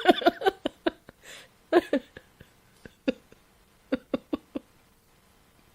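A woman laughing: a quick run of short laughs, an in-breath, a few more laughs, then trailing off into scattered single giggles.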